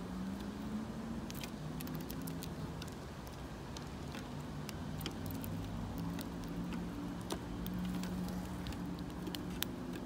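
Low hum of a motor vehicle engine, its pitch shifting slowly, with many scattered sharp clicks of house sparrows pecking at crumbs on a hard surface.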